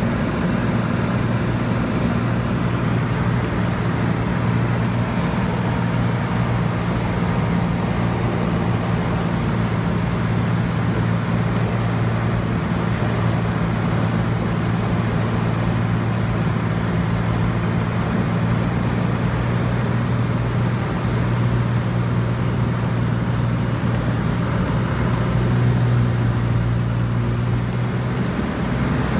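Cessna 182's single piston engine and propeller droning steadily, heard from inside the cockpit on final approach. The drone swells slightly near the end.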